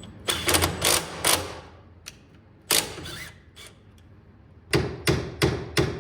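Hammer blows on a Peugeot 106 GTI's front strut and hub carrier, driving the seized strut loose. There is a quick run of about four strikes, a single strike near the middle and another run of about four near the end.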